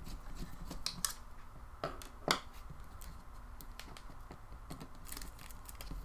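Scattered light clicks and ticks from hands taking apart a Nexus 7 tablet, its plastic and metal parts and a small screwdriver tapping against each other, with a short run of clicks near the end.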